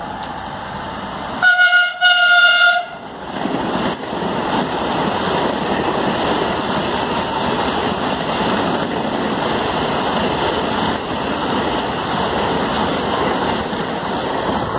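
Vande Bharat Express (Train 18), an engine-less electric multiple-unit train, sounds its horn twice, a short blast and then a longer one, about two seconds in. It then runs through the station at speed with a loud, steady rush of wheels and air.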